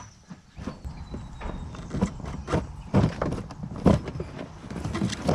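Wiring harness being pulled by hand through a lubricated rubber firewall grommet: irregular knocks, rubbing and rustling of the cable and its loom against the grommet and the surrounding panels.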